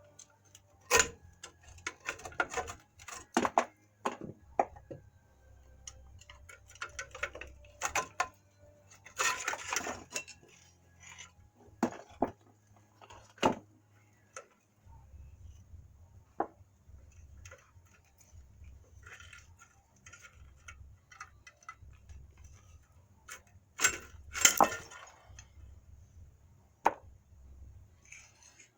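Irregular metal clinks and clanks of hand tools and drum-brake hardware being handled and knocked, with the loudest knocks about a second in and a burst of clatter about four seconds before the end, over a faint steady low hum.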